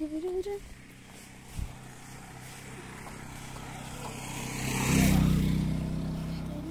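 A motor vehicle's engine approaching and passing close by, growing louder to a peak about five seconds in, then fading away.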